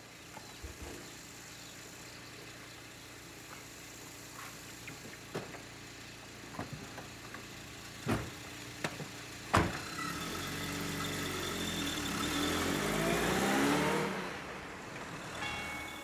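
Several knocks and thumps of car doors shutting, then a car's engine running as it pulls away towing a small trailer, its note rising as it speeds up and then fading.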